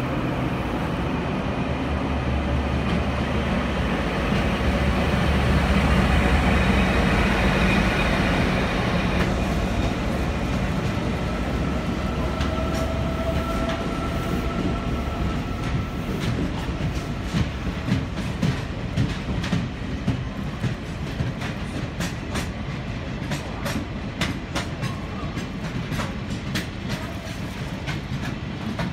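Freight train passing through a station. The locomotive's engine rumble builds and passes about six seconds in, a drawn-out high whine follows, and then a long string of freight wagons goes by, the wheels clacking steadily over the rail joints.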